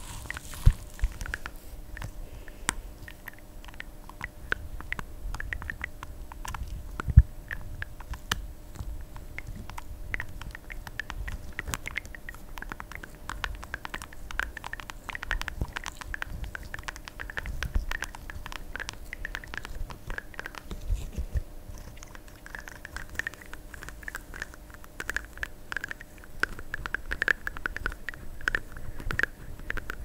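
Fingers pressing, squeezing and rubbing a soft pimple-popping squeeze toy close to a microphone: dense small sticky clicks and crackles, with a couple of louder knocks, one just after the start and one about seven seconds in.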